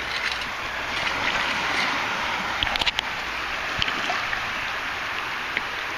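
Shallow surf washing and water sloshing in a steady rush, with a few light clicks and knocks near the middle.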